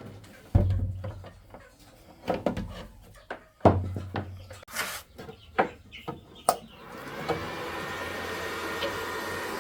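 Objects being handled on a wooden surface: a series of knocks and clatters with a couple of dull thumps. About two thirds of the way in, a steady mechanical whine starts and holds an even pitch to the end.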